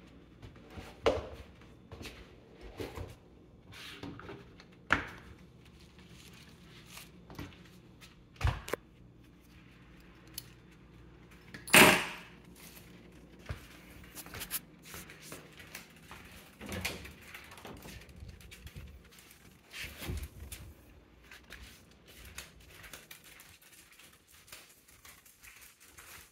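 Scattered household knocks and clatters, like doors, drawers or cupboards being opened and shut, the loudest about twelve seconds in.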